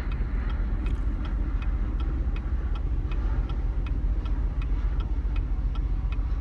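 2016 Chevrolet Camaro engine idling with a steady low rumble, running rough enough to shake and jerk the car, with no check engine light on. Over it, the hazard flasher relay ticks evenly, about two or three ticks a second.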